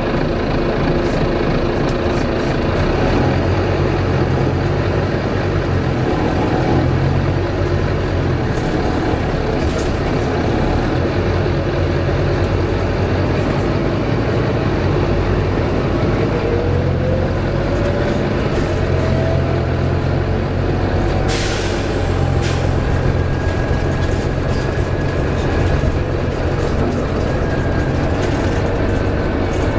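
Volvo B9TL double-decker bus's six-cylinder diesel engine and driveline running under way, heard inside the passenger saloon, with a steady low drone and a whine that rises in pitch as the bus picks up speed. About two-thirds of the way through there is a short burst of air hiss.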